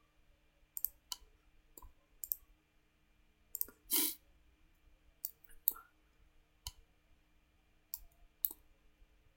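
Computer mouse clicking: about a dozen short, sharp clicks at irregular intervals, with a louder, longer noise about four seconds in. A faint steady hum runs underneath.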